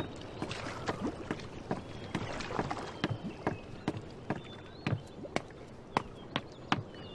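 Footsteps, a run of sharp knocks at about two a second, slightly uneven.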